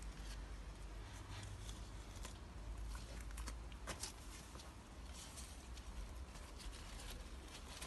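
Faint outdoor background: a low steady rumble with a few soft, scattered clicks and taps.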